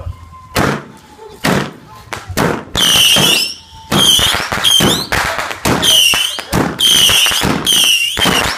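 Consumer firework cake firing: a few sharp cracks, then a rapid series of shots, most carrying a short high whistle, about one a second.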